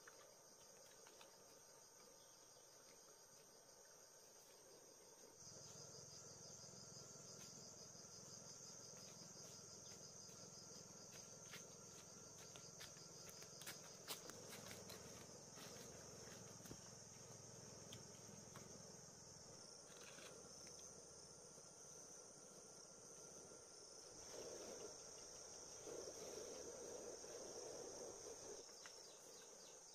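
Faint, steady high-pitched chirring of insects, with a fine pulsing texture. A faint low hum joins underneath about five seconds in, and a few light clicks come around the middle.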